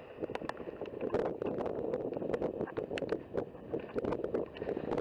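Gusty wind noise on the microphone, broken by many irregular sharp clicks and pops.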